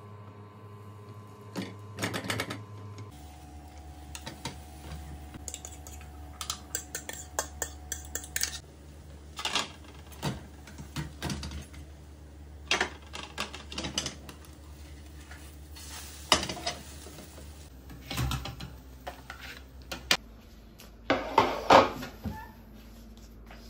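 Irregular clinks and clatters of a spatula, a frying pan and china plates at the stove, over a steady low hum. There is a louder clatter near the end.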